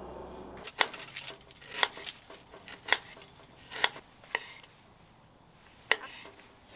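Cutlery and dishes clinking: a run of sharp separate clicks and clinks, some with a brief metallic ring, about a dozen over four seconds, then one more near the end.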